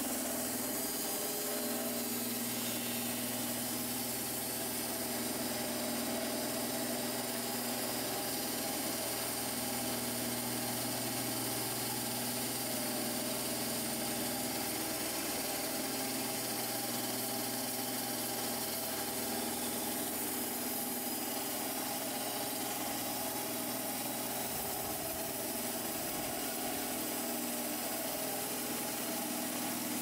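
Band sawmill running steadily, its blade sawing a board off a pear log: an even, unbroken machine drone.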